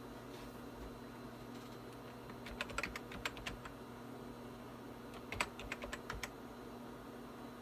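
Keystrokes on a computer keyboard, in two short runs of several quick taps, entering details into the Windows setup screen, over a steady low electrical hum.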